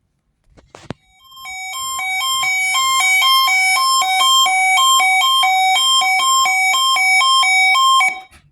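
NOAA weather radio receiver's alert alarm going off for the weekly weather radio test: a click, then loud beeping that alternates between a high and a low pitch for about seven seconds before cutting off.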